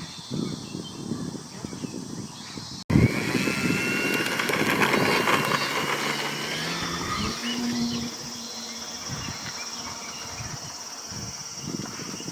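RC model airplane's motor and propeller whining, coming in suddenly about three seconds in with a rising pitch, then settling and fading a little after about eight seconds.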